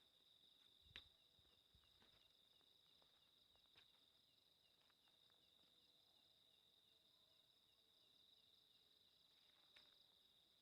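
Faint night insects: a steady high-pitched cricket trill, with a quicker pulsing chirp under it. A few soft clicks come about a second in, near four seconds, and near the end.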